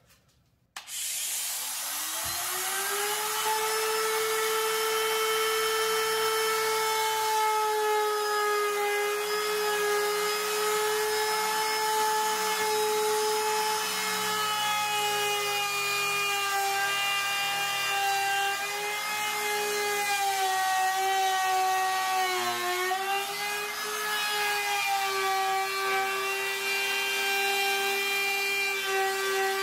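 Ridgid trim router starting about a second in, winding up to a steady whine, then cutting a juice groove into a hardwood cutting board with a bullnose bit. The pitch sags briefly about two-thirds through as the bit takes load, then recovers.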